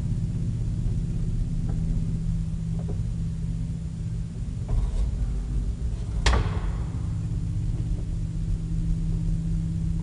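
Vintage Flohr traction elevator running with a steady low hum and rumble, with one sharp clunk about six seconds in and a few lighter ticks before it.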